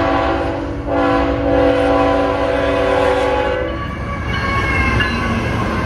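CSX freight locomotive's air horn sounding for a grade crossing: a long blast breaks off about a second in, and a second long blast follows and cuts off near four seconds in. Then the engine and the wheels on the rails rumble as the locomotive passes close by.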